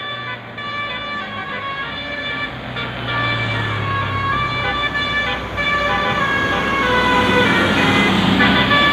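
Bus basuri telolet horn, a multi-tone musical air horn, playing a melody of held notes that change in steps, over the low rumble of the bus engine. It grows steadily louder.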